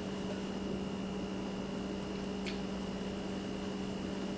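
Steady room hum: a low even tone with a faint high whine over it, unchanging throughout, and one faint brief sound about two and a half seconds in.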